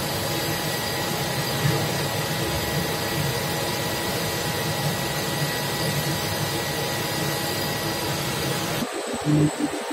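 Steady hum and hiss of a Bornemann cheese transfer pump's motor running on a variable-frequency drive, with faint steady whine tones. Near the end the hiss cuts off suddenly and an uneven low churning, rising and falling in loudness, takes over.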